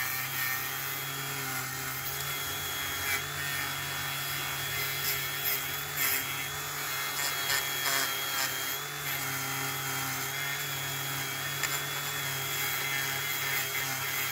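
Handheld rotary tool running steadily with a small wire brush wheel scrubbing bare die-cast metal: a constant motor whine under a scratchy brushing noise. It is cleaning the last paint off a model car body after paint stripper.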